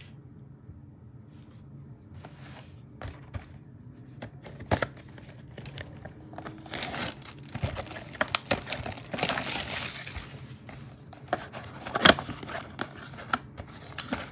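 Plastic shrink wrap crinkling and tearing as it is stripped off a Panini Mosaic trading-card mega box, starting about two seconds in and getting busier from about halfway, with a few sharp snaps of plastic and cardboard.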